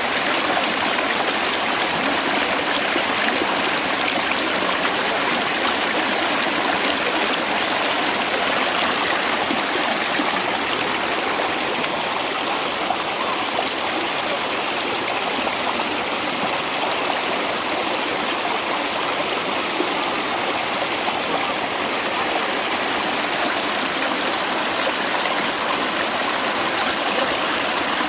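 Water of a mountain valley stream running steadily, an even rushing sound with no let-up.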